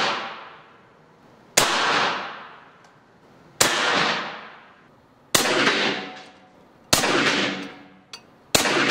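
Benjamin Bulldog .457 big-bore PCP air rifle firing five loud shots about one and a half to two seconds apart, each report ringing out and fading over about a second.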